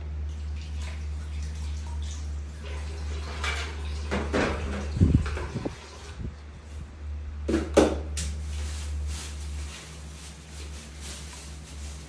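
A spoon clinking and scraping in a small stainless-steel bowl as a monkey scoops food out of it, in irregular knocks with the loudest about five and eight seconds in. A steady low hum runs underneath.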